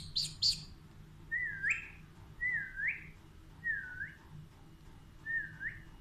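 Alexandrine parakeet whistling four times, each whistle dipping in pitch and then sweeping sharply up, after a few short shrill chirps at the start.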